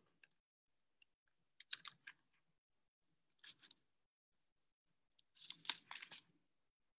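Near silence broken by three short clusters of faint clicks at a computer, a couple of seconds apart.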